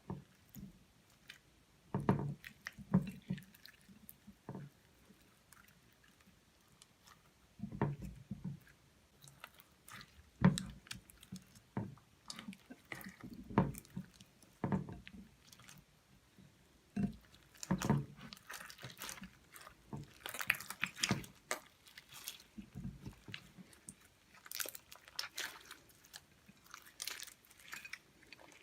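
Hands kneading and squishing slime as makeup is worked into it, giving irregular wet squelches and small clicking pops.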